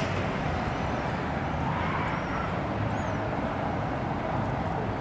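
Steady hum of urban road traffic, with a few faint high bird chirps about two and three seconds in.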